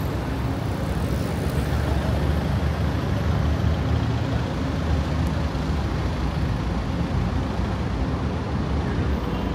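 Steady road traffic on a busy city avenue: vehicle engines and tyres making a continuous low rumble with no single standout event.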